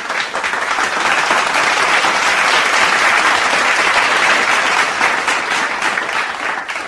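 Crowd applauding, building to its loudest in the middle and dying down near the end.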